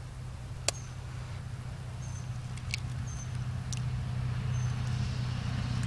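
A few sharp clicks and light taps over a steady low hum. The loudest click comes about a second in, with lighter ones later and several very short high chirps in between.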